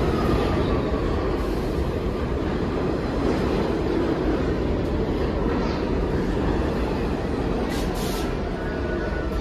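R46 New York City subway train rolling past along the station platform: a steady rumble of steel wheels on rail and running gear as car after car goes by.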